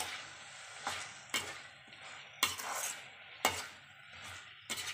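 Perforated metal spatula scraping and knocking against a metal kadai while an onion-tomato masala is stirred and sautéed, with a faint sizzle of frying underneath. The strokes come about once a second, unevenly.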